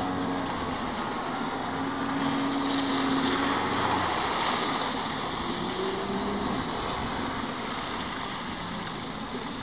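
Outboard motor of a RIB running at speed as the boat passes close, with the rush of hull and spray loudest about four to five seconds in. The sound eases off a little near the end as the boat slows.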